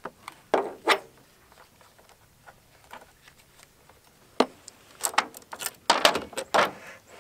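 Husqvarna 350 chainsaw being taken apart by hand: a few sharp clicks, then a run of metallic clinks and rattles about five to seven seconds in as the saw chain is lifted off the bar.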